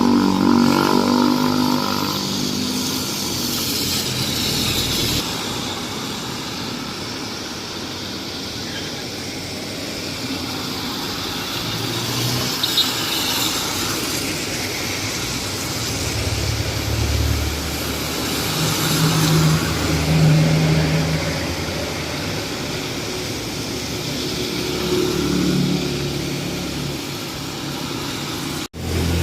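Cars and motorcycles passing on a rain-wet road, their engines swelling and fading several times over a steady hiss of rain and wet tyres.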